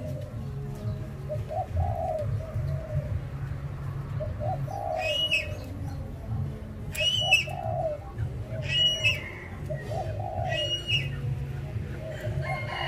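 Spotted dove cooing, a low call repeated about every two seconds, about six times. Each coo is answered by a short, higher-pitched call.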